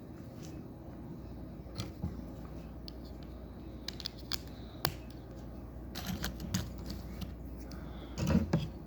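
Plastic Lego pieces being handled and clicked together during building: scattered sharp clicks and light knocks, with the loudest cluster of clicks and a dull thump near the end.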